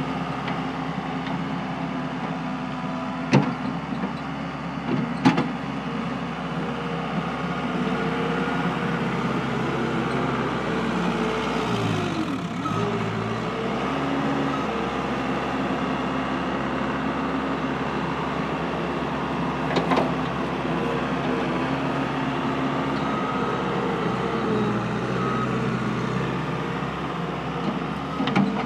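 Case 75XT skid steer's 75-horsepower diesel engine running steadily while the machine is operated. Its engine note dips and recovers once about halfway through, and there are a few sharp knocks.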